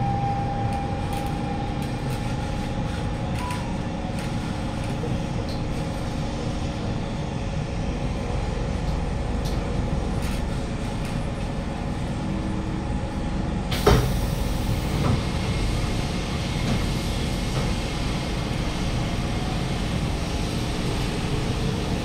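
Siemens C651 metro train heard from inside the car: a steady low rumble with faint steady tones as it runs slowly into the station and stops. About fourteen seconds in there is a single sharp clunk, and after it a brighter hiss as the doors open onto the platform.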